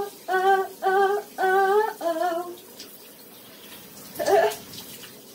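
A woman singing a few held notes without words in a small bathroom, then water running in the bath or shower after about two and a half seconds, with a short vocal sound about four seconds in.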